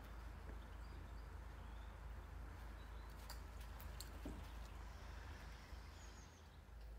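Quiet outdoor background noise: a steady low rumble, with a few faint ticks.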